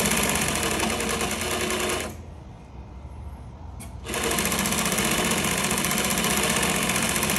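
Vintage Singer 47w70 darning machine sewing through denim with a fast, even needle rhythm while the jeans are rocked back and forth to darn a hole. It stops about two seconds in, a click sounds, and it starts up again about four seconds in and runs on steadily.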